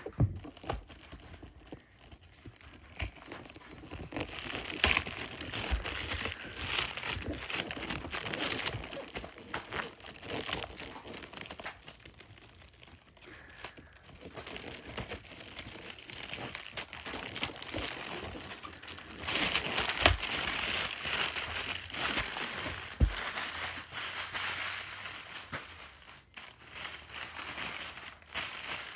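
Plastic packaging crinkling and rustling as it is handled and unwrapped, with scattered clicks and a few knocks. It is loudest for a few seconds about two-thirds of the way through.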